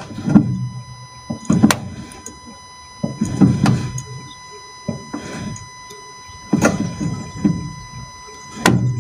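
Front suspension clunking as the steering wheel is turned with the car standing still, a knock with a low rumble every second or two. The clunk is the symptom of worn strut top mounts (damper tops).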